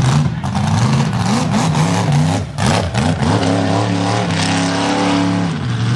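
Mega truck engine revving hard in repeated bursts, its pitch rising and falling several times. About halfway through the revs climb and are held high for a couple of seconds before dropping back near the end.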